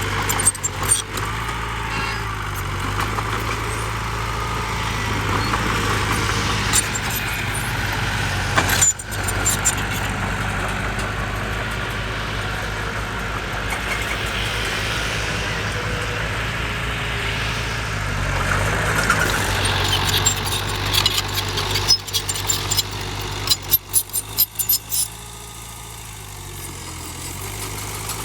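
Diesel engine of heavy earthmoving machinery running steadily, with a run of sharp knocks and clatter in the second half.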